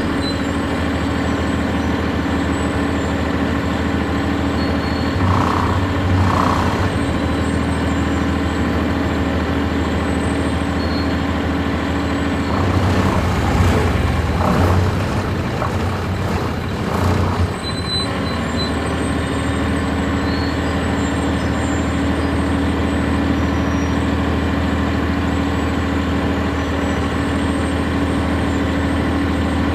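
A 1999 NovaBus RTS transit bus's Cummins ISC straight-six diesel, heard from on board, idling steadily at an even pitch. Near the middle there are a few seconds of louder, rougher noise over the engine.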